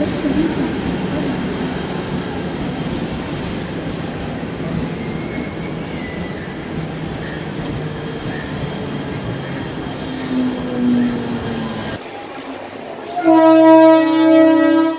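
Mumbai suburban electric multiple-unit train moving along the platform: a steady rumble of wheels on rail with faint squeals. Near the end comes a loud horn blast, one held chord lasting about two seconds.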